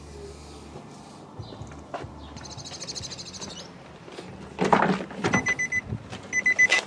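A clatter of knocks, then an electronic warning beep. The beep is a short, trilling two-pitched tone that repeats about once a second, starting about five seconds in.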